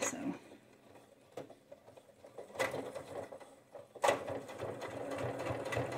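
Janome sewing machine stitching through thick PUL and flannel layers. It runs in spurts: briefly about two and a half seconds in, then steadily from about four seconds in.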